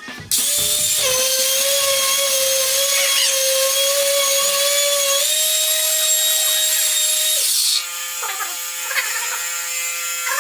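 Electric power tool motor running at high speed, a steady whine with a hiss over it. It starts just after the opening, steps up in pitch about five seconds in, and drops to a quieter, lower running near eight seconds in.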